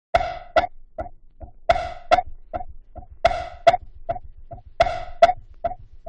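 Opening of a 1993 jungle record: a lone loop of pitched percussion hits, about two and a half a second, repeating in groups of four with the first two loudest.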